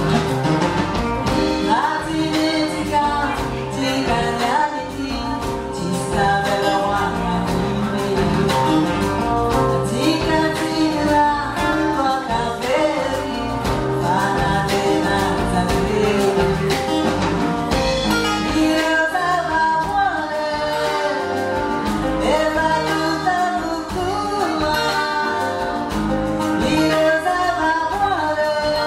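Live band music: a woman singing the lead in Malagasy over guitars and drums.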